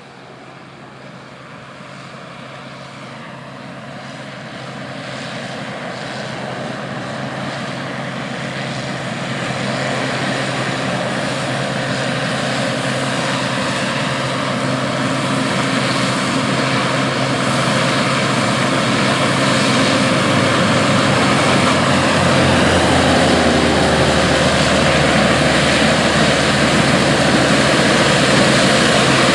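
International 815 combine, its 144 hp IH V345 gasoline V8 and threshing machinery running steadily while harvesting corn with a 4-row corn head. The engine hum and machinery grow steadily louder over about twenty seconds, then hold.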